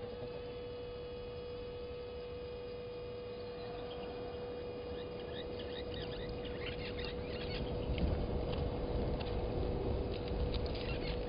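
Birds calling in quick bursts of short, high chirps from about four seconds in and again near the end, over a steady electrical hum; a low rumble swells about eight seconds in.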